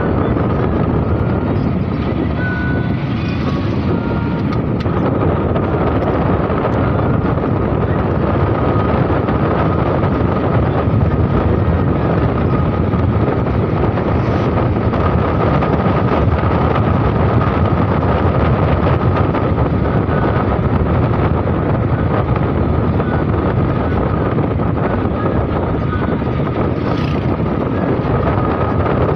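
Steady running noise of a vehicle driving along a paved highway: engine and tyre noise, with a thin steady whine over it.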